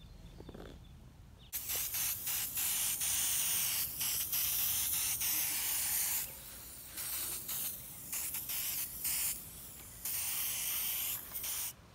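Aerosol spray paint can spraying a black paint-and-primer base coat onto a wooden pole: a long hiss starting about a second and a half in, then a few short bursts, then another long spray near the end.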